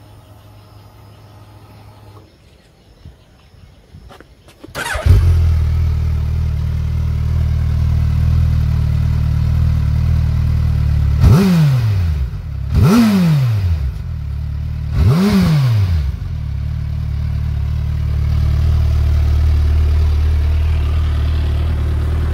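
Suzuki Hayabusa's 1340 cc liquid-cooled inline-four starts about five seconds in and settles into a steady idle. It is then given three quick throttle blips, each revving up and dropping back, before it idles on.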